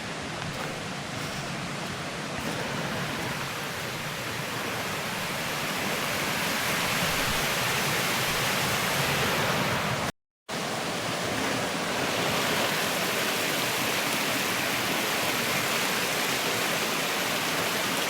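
Waterfall rushing as a steady hiss that grows louder over the first several seconds. It cuts out completely for a moment about ten seconds in.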